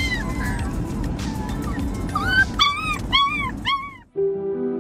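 Young puppies whining and yipping, a quick run of short cries that rise and fall in pitch, over a low rumble. About four seconds in they cut off and soft, slow music takes over.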